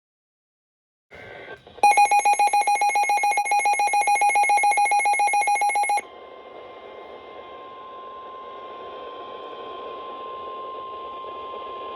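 A weather alert radio going off: a rapid, shrill electronic beeping trill for about four seconds, then the NOAA Weather Radio warning alarm tone, one steady tone over radio static, which carries on to the end.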